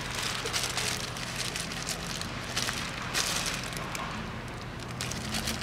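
Irregular crackling rustle of plastic packaging being handled, over a steady low hum.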